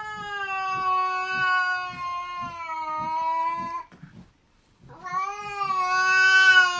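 A cat yowling at another cat in a standoff: two long, steady, drawn-out calls, the first about four seconds long and the second starting about five seconds in.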